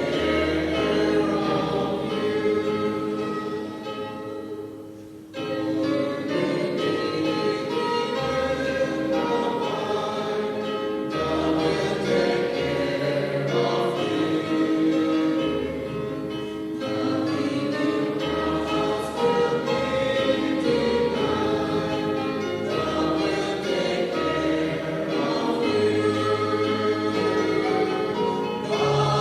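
A choir singing a hymn in long held phrases over low sustained bass notes, with brief pauses between phrases.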